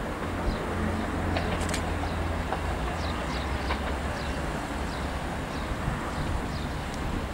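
Diesel railcar approaching slowly along the track, its engine a steady low drone. Short high chirps sound over it, with a few sharp clicks about a second and a half in.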